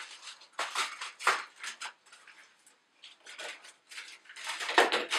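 A cardboard carton of frozen strawberries being opened with short crackling rustles, then the hard frozen berries tipped into a stainless-steel Thermomix mixing bowl, clattering and rattling, loudest near the end.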